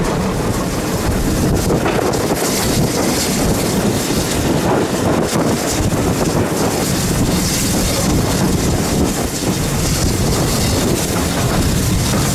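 Train running, with a steady rushing noise and wind buffeting the microphone.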